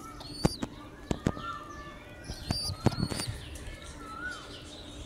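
Short chirping bird calls, several with a pitch that rises then falls, among a handful of sharp clicks and knocks, a few of them strong, about half a second to a second apart.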